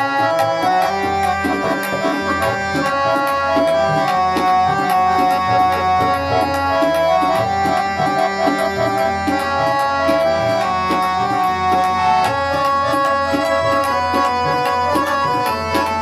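Two Crown Flute harmoniums playing a sustained melody over a steady tabla rhythm: an instrumental passage of Sikh shabad kirtan, with no singing.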